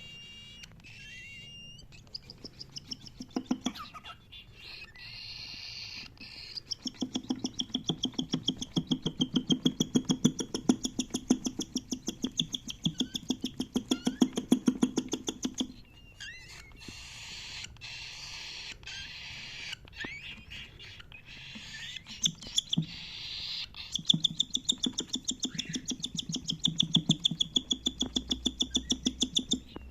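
Cockatiel chirping: short high calls, then long runs of rapid repeated chirps, several a second, in the middle and again near the end.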